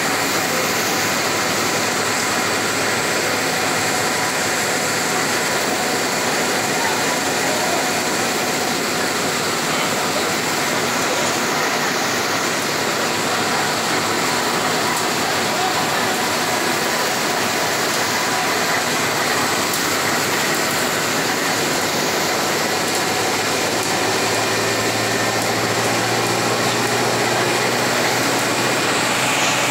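Steady cabin noise inside a Volksbus 17-230 OD city bus driving on a wet road: a constant rush of engine, tyre spray and rain. A low engine hum comes up near the end.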